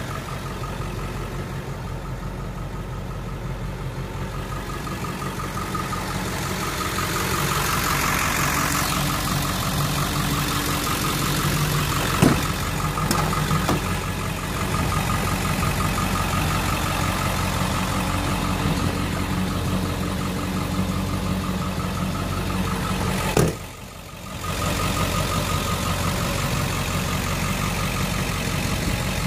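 Ford 7.3L Powerstroke turbo-diesel V8 idling steadily, getting louder a few seconds in, with a sharp click near the middle and a brief drop in level near the end.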